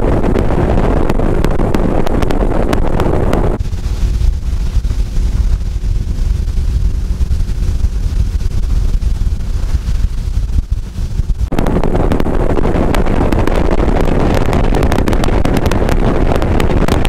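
Bass boat's outboard motor running at speed, with heavy wind rush over the microphone and water noise. From about three and a half seconds in to about eleven and a half seconds, the rush falls away, leaving a steadier engine hum, before the loud rush returns.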